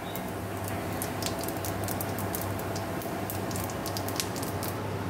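Radhuni seeds crackling and spitting in hot oil in a kadai, the tempering (phoron) for dal: quick irregular pops over a steady hiss, thinning out near the end.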